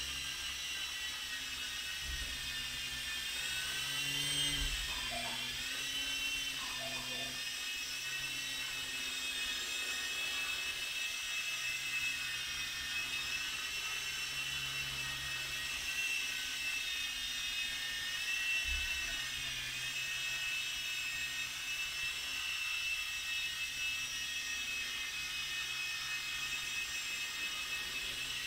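Blade mCX2 ultra-micro coaxial helicopter in flight: its two coreless motors and rotors give a steady high whine whose pitch wavers up and down with the throttle, dipping a few times.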